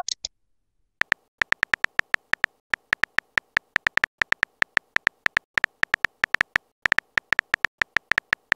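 Keyboard typing clicks from a texting-story app: a fast run of short, identical key clicks, several a second, starting about a second in, as a message is typed out letter by letter.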